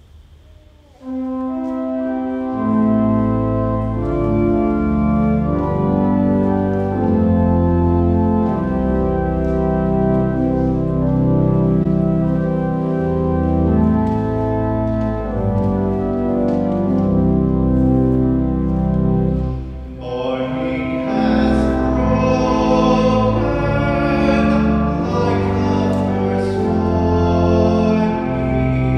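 Church organ starting about a second in, playing slow, held chords. A singer joins it about twenty seconds in.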